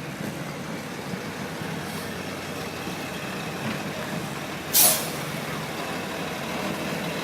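Heavy truck running steadily, with one short, loud hiss of released air brakes a little under five seconds in.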